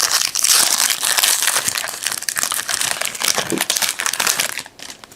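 Plastic wrapper of a trading card pack crinkling and crumpling in the hands as the pack is opened, a dense crackle that dies away about four and a half seconds in.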